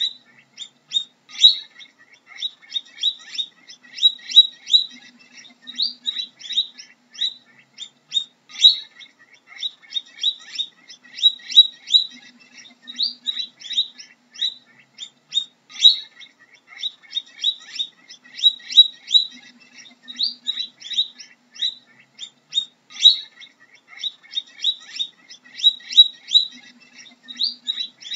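Guinea pig chirping: quick, high, bird-like chirps in clusters that repeat about every one and a half seconds.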